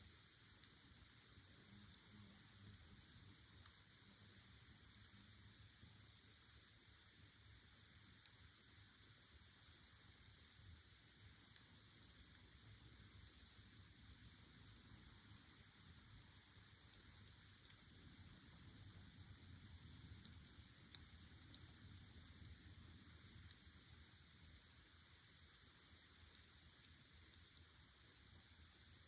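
Steady, high-pitched chorus of crickets chirping without a break on a warm summer night, with a few faint clicks here and there.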